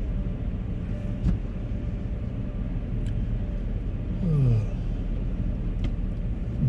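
Steady low rumble inside a vehicle's cabin, with a few faint knocks and a brief falling tone about four seconds in.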